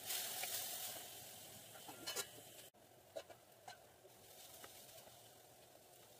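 Water hitting hot fried onion masala in a metal kadai: a sudden sizzle that dies down over about a second. A spatula then stirs and scrapes the pan with a few light clicks and taps.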